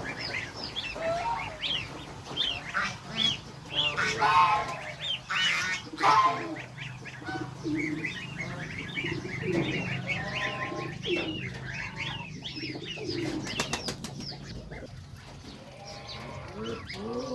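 A crowd of goslings peeping: a constant chorus of short chirps, with several louder calls in the first six seconds over a steady low hum.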